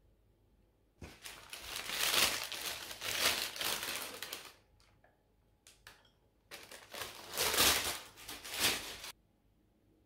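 Brown paper bakery bag rustling and crinkling as it is handled and a pastry is taken out of it. The rustling comes in two bouts of about three seconds each, with a few faint clicks in the pause between them.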